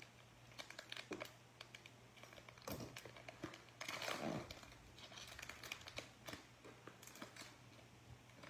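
Plastic wrapper of a Panini Prizm cello pack of trading cards crinkling faintly as it is opened and the cards are pulled out, with a louder crinkle about four seconds in.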